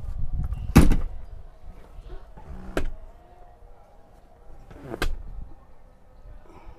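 Three sharp clunks of a car's body and fittings being handled, the loudest about a second in and two lighter ones about two and four seconds later, over a low rumble.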